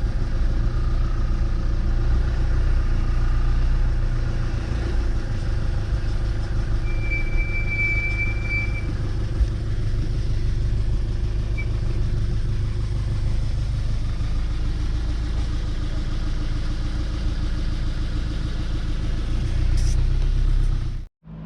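Steady low rumble of a truck driving at a moderate pace, engine and tyre noise, with a brief thin whistle about seven seconds in.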